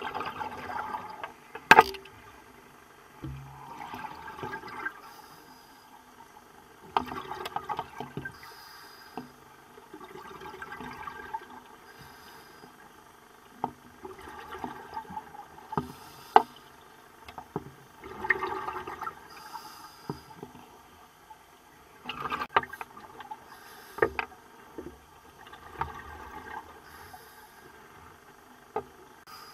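Scuba diver breathing through a regulator underwater: exhaled bubbles gurgle in bursts of a second or two, about every three to four seconds, with scattered sharp clicks between them.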